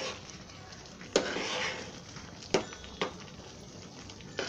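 Metal spoon stirring a simmering black-eyed pea curry in a metal pot, clinking against the pot four times: about a second in, twice around two and a half to three seconds, and near the end.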